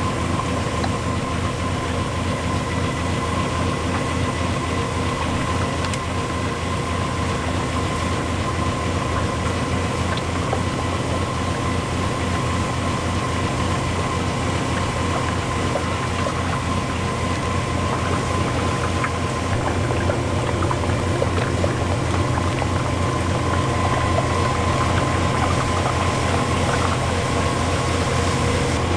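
Electric garaetteok (Korean rice-cake) extruder running while extruding rice-cake ropes: a steady motor hum with a fast, even chugging pulse of about four beats a second and a steady high tone over it.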